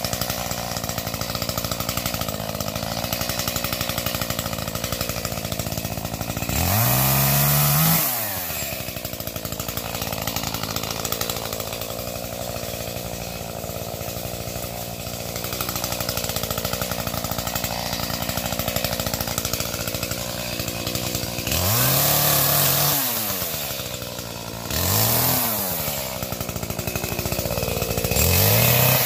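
Chainsaw running at low speed, revved up to high speed four times for a second or two each, the pitch sweeping up and dropping back each time while firewood is cut.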